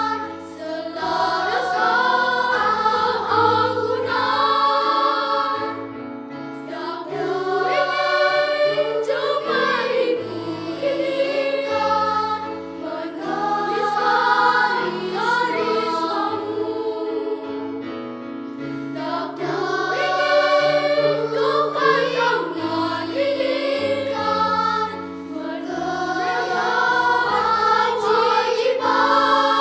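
Children's choir singing a song in several voice parts, in phrases a few seconds long, over low sustained accompaniment notes.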